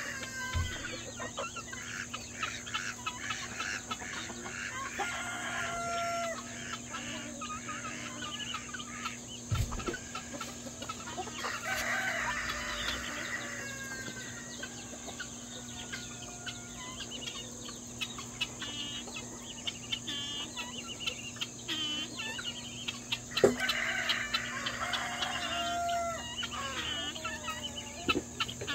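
Backyard chicken flock clucking and calling, with a rooster crowing twice, about 12 seconds in and again near 24 seconds.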